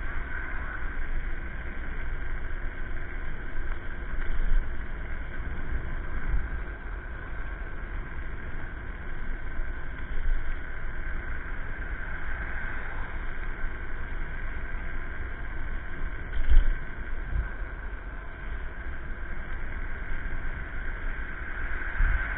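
Riding an electric scooter: a steady rush of wind on the microphone and road noise, with two short thumps, one about four seconds in and a louder one about sixteen seconds in.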